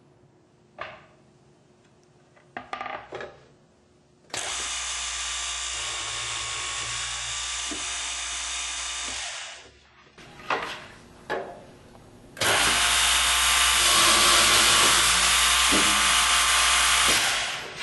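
GANNOMAT DB21 multi-spindle dowel boring machine running through two boring cycles of about five seconds each, each starting and cutting off sharply, the second louder. A few short knocks come before and between the cycles.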